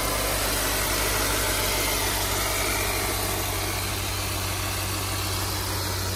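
A 2018 Honda Accord EX-L's engine idling steadily with a low, even hum.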